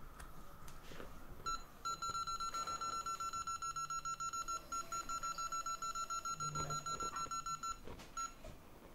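Electronic beeper on a repair-bench device sounding a fast run of high beeps, about eight or nine a second, for roughly six seconds, then a single short beep near the end. This is typical of a control button held down to step a temperature setting.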